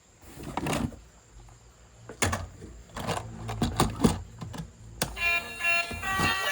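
Hard plastic toys being handled and unboxed: a run of uneven clicks, knocks and rattles. About five seconds in, a tune starts.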